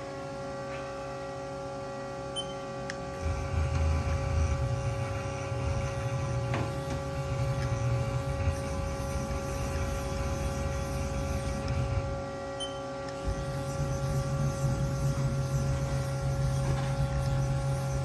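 2007 Haas SL-20 CNC lathe running, a steady machine hum made of several held tones. A heavier low drone comes in about three seconds in, drops away briefly just after twelve seconds and comes back about a second later.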